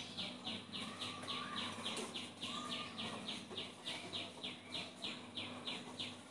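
A bird chirping faintly in a fast, even series, about three short chirps a second, stopping shortly before the end.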